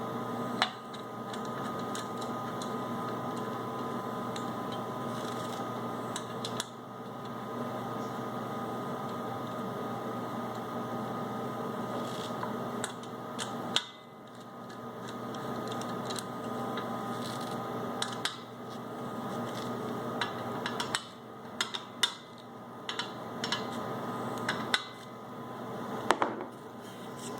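Bolts on a rotary vane compressor's head plate being tightened one after another with a nut driver: scattered metal clicks and clinks of the tool and bolts, over a steady background hum.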